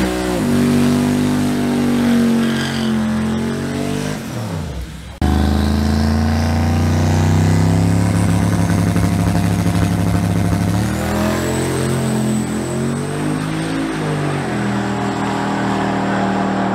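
Twin-turbo Chevrolet Silverado pickup's V8 revving, then running hard under full throttle down a drag strip, with a high turbo whine rising over the engine note. The engine pitch climbs and drops again a few seconds before the end.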